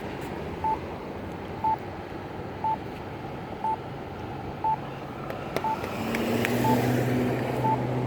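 Accessible pedestrian signal push button sounding its locator tone: a short beep about once a second over traffic noise. About six seconds in, a vehicle engine's steady hum comes in and grows louder.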